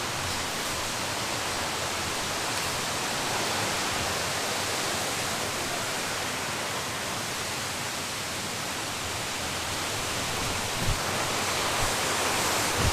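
Waterfall pouring heavily, a steady rush of falling water with the flow running very strong.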